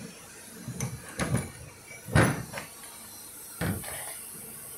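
Parts of a universal puller being handled during assembly: a handful of separate knocks and clunks, the loudest about two seconds in.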